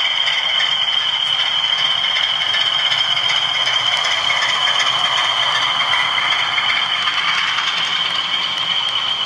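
Model diesel locomotive with a DCC sound decoder running past with its coaches: the decoder's engine sound from the loco's small speaker, mixed with the wheels rattling along the model track and a steady high-pitched tone. It is loudest around the middle as the train passes closest.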